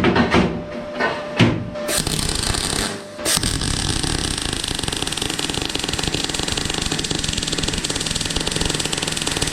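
A few knocks and clatters of metal being handled, then about three seconds in a MIG welder's arc starts and crackles steadily, welding steel box section to a plate.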